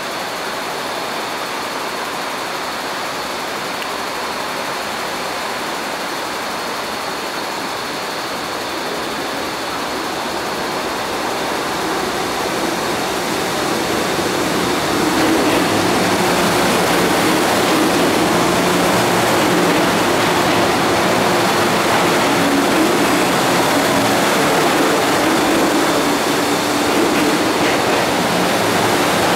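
An MTR M-Train electric multiple unit, running empty as a non-passenger service, goes through a metro station platform without stopping. A steady rushing noise grows louder from about ten seconds in as the train comes in. From about halfway on, the wheels and motors run past steadily behind the platform screen doors, with a low hum under the rail noise.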